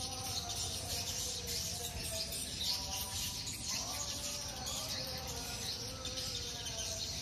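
Swiftlet calls: a dense, continuous high twittering and chirping, with fainter wavering lower tones beneath.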